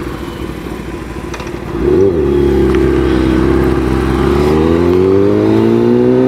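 Kawasaki ZX-10R's inline-four engine heard from the rider's seat. It gets louder about two seconds in and then pulls steadily, its pitch rising as the bike accelerates.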